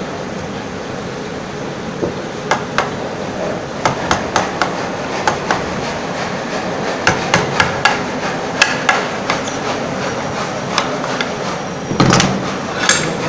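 Wooden mallet striking a wood chisel, chopping a mortise in a timber workpiece: irregular sharp knocks, some in quick runs of three or four strikes, with a louder knock near the end.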